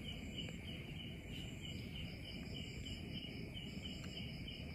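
Faint, evenly repeating high insect chirps, about five a second, over low background hiss.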